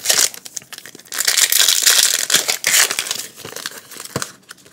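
Foil Pokémon booster pack crinkling as it is handled and torn open: a sharp crinkle at the start, then a longer stretch of dense crinkling that thins out near the end.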